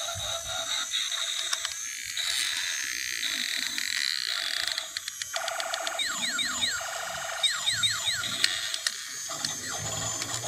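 Battery-powered transforming robot toy truck turning itself from truck into robot: its small motor and gears whir, with electronic sound effects and a string of quick falling chirps about six to nine seconds in.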